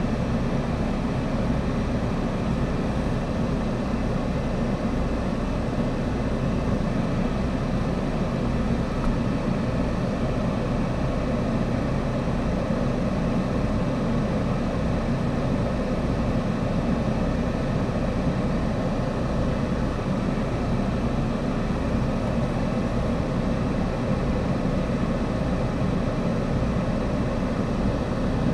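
A car idling steadily while stopped, a constant low rumble that neither rises nor falls.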